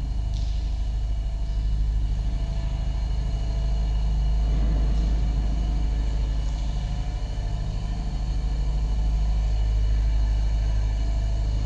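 Star Wars Star Destroyer interior hangar ambience sound effect: a steady deep rumble with a constant mechanical hum, broken by a few faint, short high hisses.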